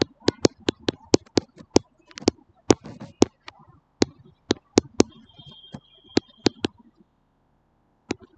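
Stylus tapping and clicking on a pen tablet while handwriting, a quick irregular run of sharp clicks that stops about seven seconds in, with one more click near the end. A faint steady high whine sounds briefly about five seconds in.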